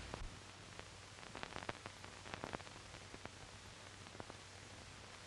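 Faint steady hiss with scattered soft clicks and crackles: the surface noise of an old 1930s film soundtrack in a pause between lines.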